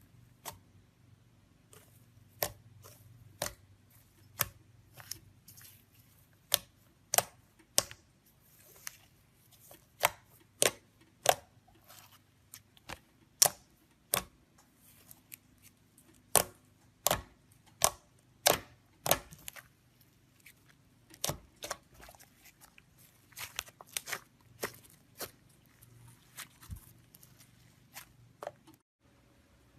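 Slime being pressed and stretched by hand, giving sharp popping clicks at irregular intervals, roughly one or two a second.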